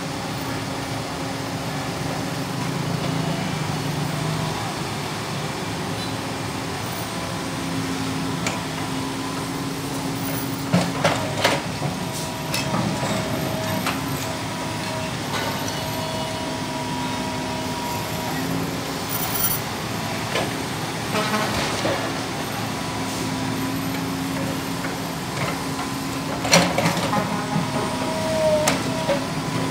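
Komatsu PC200LC hydraulic excavator's diesel engine running steadily while it loads demolition rubble into a dump truck, with several clattering knocks of bucket and broken brick and concrete. The loudest knock comes about three-quarters of the way through.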